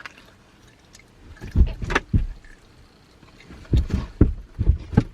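Soft thumps and knocks of things being handled and moved inside a car: one or two about one and a half to two seconds in, then four or five in quick succession near the end.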